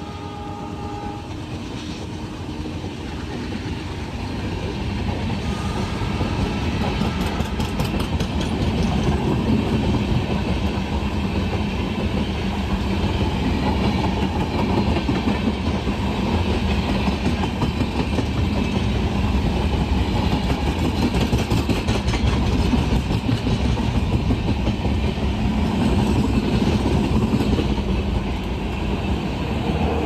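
An express train's LHB passenger coaches passing at speed without stopping, their wheels clattering over the rail joints with a heavy rumble and rush that builds over the first several seconds and stays loud. A horn note sounds at the very start and stops about a second in.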